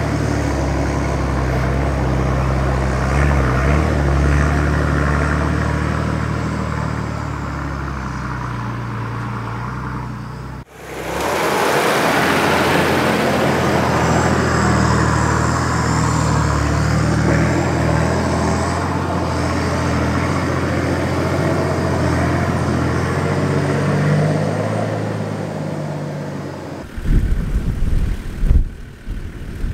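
A Nissan Patrol 4WD's engine running at low, steady revs as it crawls along a soft sand track, with tyre and scrub noise over it. The sound breaks off sharply once near the middle, and near the end it turns uneven and louder in short bursts as the vehicle comes down over the sand.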